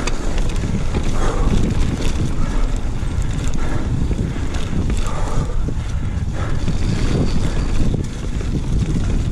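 Wind rushing over the camera microphone, with tyre noise on dirt and irregular knocks from a Yeti SB150 full-suspension mountain bike riding down a singletrack trail.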